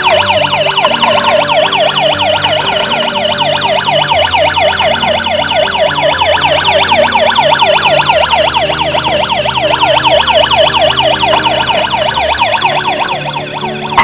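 Battery-powered toy police car's electronic siren: a loud, fast warble sweeping up and down about five times a second, with low electronic notes changing underneath.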